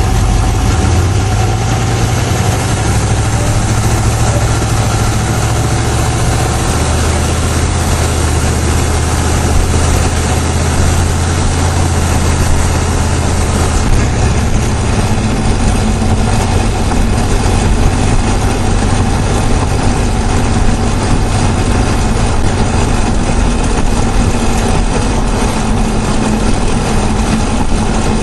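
GM LS4 5.3-litre V8 running, recorded close up in the engine bay, with a steady chatter that the owner believes is abnormal and worsening, though others call it normal for the Displacement on Demand system; he rules out an exhaust leak. The deep drone changes character about halfway through.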